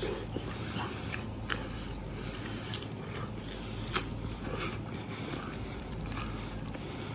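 Close-up biting and chewing of crispy roasted pork hock, with scattered small crunches and clicks.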